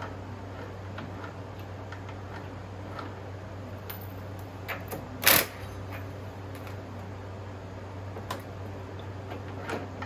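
Scattered light clicks and taps of hand tools and engine parts being handled during work on a 49cc engine, with one louder sharp clack about five seconds in, over a steady low hum.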